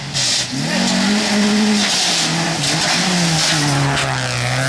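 Peugeot rally car engine at high revs on a gravel stage; its pitch climbs, drops and climbs again several times through gear changes and lifts, with gravel spraying and hissing under the tyres.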